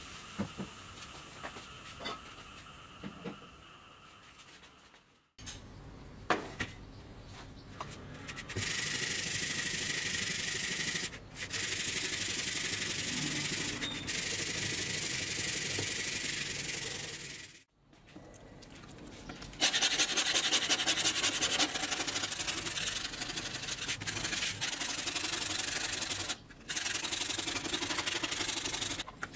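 A rusty steel circular saw blade scrubbed in a metal tray, in long stretches of steady scraping that get louder in the second half. At first there is only a faint fizzing with small ticks as the blade soaks under foaming cleaner.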